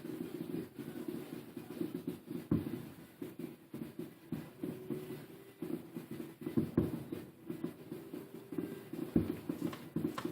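Distant fireworks heard through a window: a steady run of irregular pops and crackles, with three louder bursts about two and a half seconds in, near seven seconds and near the end.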